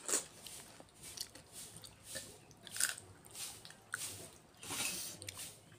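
Pani puri being eaten close up: crisp puri shells bitten, crunched and chewed in a string of short, irregular bursts.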